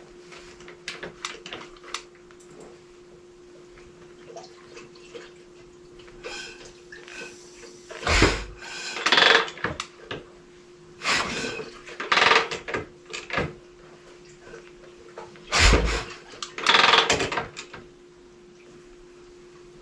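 Kick-start attempts on a stroker Harley-Davidson Shovelhead V-twin: three hard kicks, the first and last each a heavy thump followed by the engine turning over without catching. The rider thinks he has flooded it. A steady low hum runs underneath.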